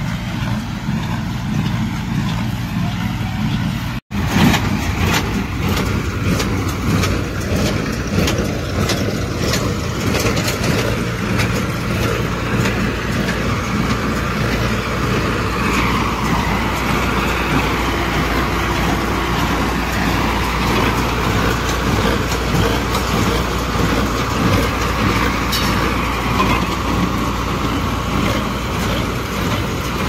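Tractor engine running steadily as it pulls a square baler picking up straw, with the clatter of the baler's pickup and working parts. A brief dropout comes about four seconds in, and the sound is louder and noisier after it.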